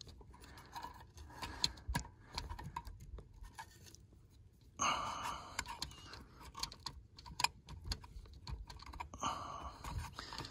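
Hands working an old Honeywell zone damper actuator off its sheet-metal damper: scattered small clicks, taps and scrapes of metal and wire. There are two louder breathy rustles, about five and nine seconds in.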